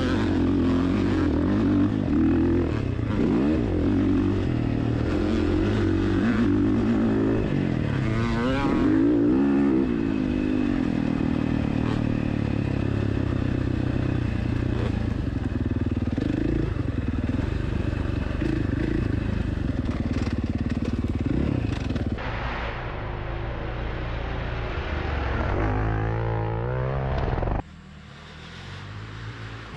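Dirt bike engine revving up and down as it rides a motocross track, the sound breaking off abruptly twice near the end.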